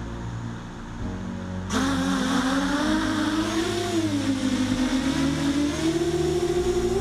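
Seven-inch FPV quadcopter's four 1200kv brushless motors and propellers spinning up suddenly about two seconds in as it takes off, then whining in flight, the pitch rising and dipping with the throttle.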